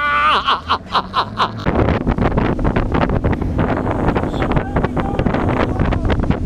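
A man laughs at the start. From about two seconds in, heavy wind buffets the microphone over the outboard motor as the bass boat runs at speed across the water.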